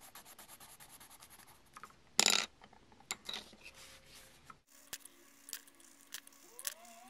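Coloured pencil scratching on paper in quick short strokes, shading a paper flexagon's triangles. A brief louder scuff of the paper comes a little over two seconds in. Later there are a few sparse light ticks as the pencil touches down and the paper is handled.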